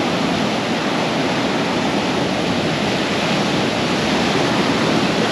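Steady, continuous rush of sea surf on a beach, with no single wave crash standing out.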